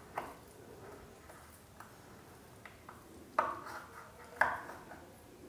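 A few light knocks and clinks of kitchen things being handled, with two louder ones about a second apart in the second half.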